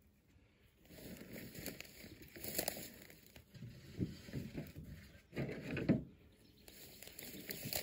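Irregular rustling and crunching in dry grass and brush, in uneven bursts, loudest about four seconds in and again around six seconds in.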